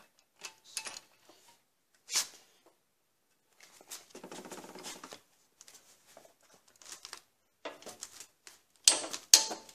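Hand ratchet wrench with a 13 mm 12-point socket loosening a hub-to-knuckle bolt, its pawl clicking in short runs, fastest about four seconds in, with a couple of sharper metal clicks near the end.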